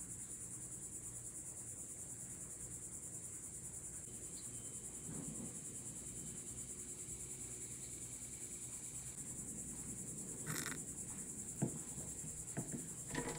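Steady high-pitched insect chorus trilling without a break, with a few light clicks and taps near the end.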